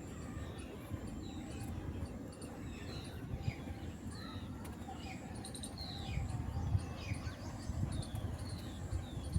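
Small birds chirping repeatedly in short, downward-sliding notes over a steady low rumble.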